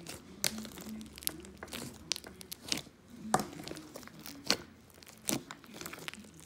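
Hands squishing and poking a thick popcorn slime full of little cut-up pieces, giving irregular sticky pops and crackles.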